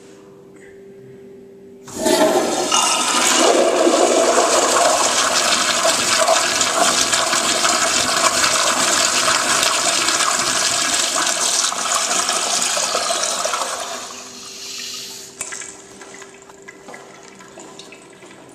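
Crane toilet flushing: a sudden rush of water about two seconds in that runs loudly for about twelve seconds, then dies away to a much quieter trickle.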